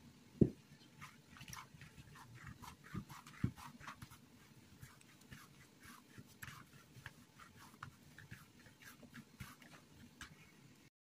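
Hands kneading soft bread dough on a countertop, heard as many faint short crackles and taps. There is a dull thump about half a second in and a smaller one about three and a half seconds in.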